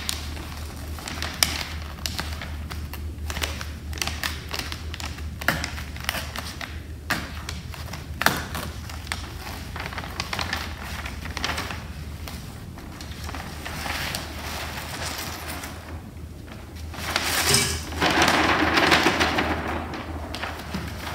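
A large sheet of paper rustling and crinkling as it is handled, with scattered light taps. About seventeen seconds in, crushed rock and sand pour off the paper into a stacked metal soil sieve, a louder rushing sound lasting a few seconds.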